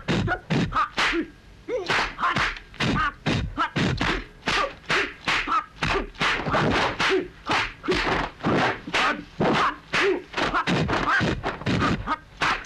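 Rapid run of dubbed kung fu fight sound effects: sharp punch-and-block whacks, about three a second, with a brief lull about a second in.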